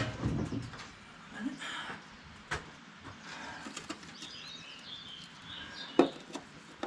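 Scattered knocks and clicks, the loudest about six seconds in, with small birds chirping in between.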